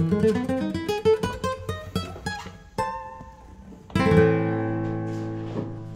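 Background music on plucked acoustic guitar: a rising run of single notes, then a chord about four seconds in that rings and slowly fades.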